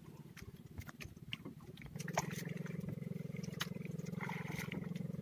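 Small engine running steadily, a low pulsing hum that gets louder about two seconds in. Over it come light clicks and snaps of malunggay stems being stripped by hand.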